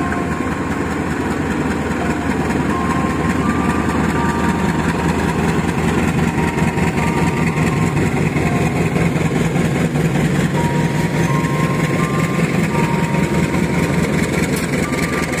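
CC 203 diesel-electric locomotive's engine running steadily as it pulls a passenger train away, with the coaches rolling past on the track.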